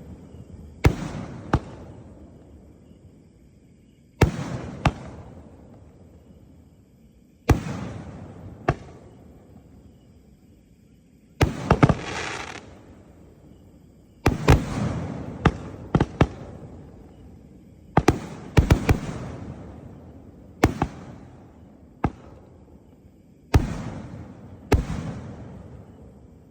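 3-inch display-shell fireworks cake (36 shots) firing: a string of sharp bangs every second or few, often in pairs, each trailing off in a hiss that fades over a second or two.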